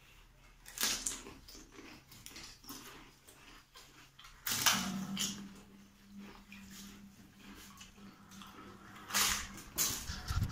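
Hollow pani puri shells being cracked and dipped into bowls of rasam: scattered crisp clicks and small splashes and drips.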